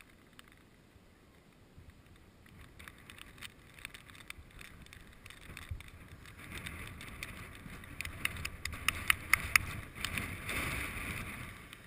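Zip line cable and trolley whirring, growing louder through the second half, with a run of sharp metallic clicks near the end.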